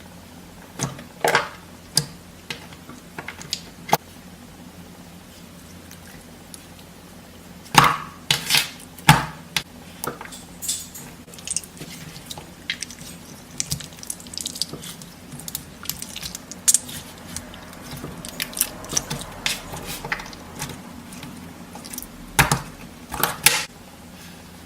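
Slime being squeezed and poked by hand, giving irregular wet clicks, pops and squishes, with a busy run of small pops through the middle and a few louder ones near the end.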